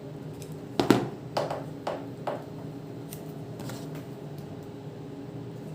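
RJ45 crimping tool squeezed around a network cable to strip its outer jacket: four sharp clicks about half a second apart in the first half, the first the loudest, over a steady low hum.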